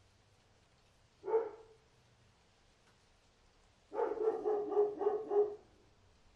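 A dog barking: a single bark about a second in, then a quick run of about five barks near the end.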